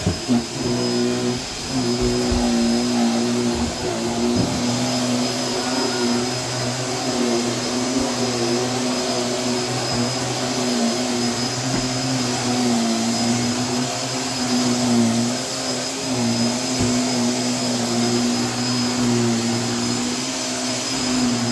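A small motor running steadily, its pitch wavering and dipping now and then, with a few knocks near the start.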